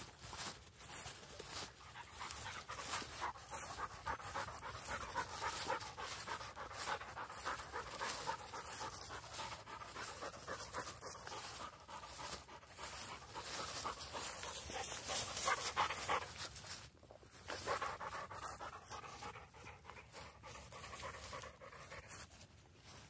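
Pointer dog panting hard, a rapid run of breaths, with rustling of tall grass.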